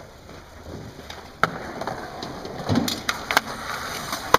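Skateboard wheels rolling on concrete, the rolling noise building as the board comes closer, with a few clicks, a dull thump partway through, and a sharp clack near the end as the board reaches the metal-edged ledge.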